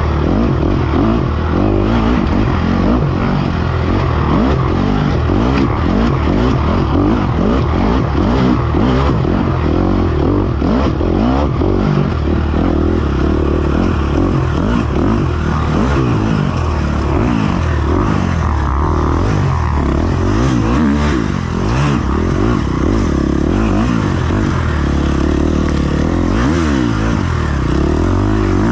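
Dirt bike engine revving up and down again and again as it is ridden hard along a wooded trail, heard from on board the bike.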